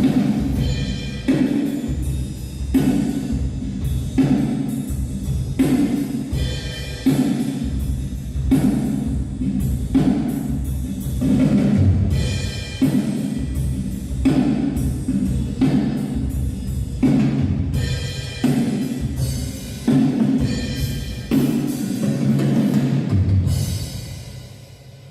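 Worship band music with a drum kit keeping a steady beat over bass; the music fades out near the end.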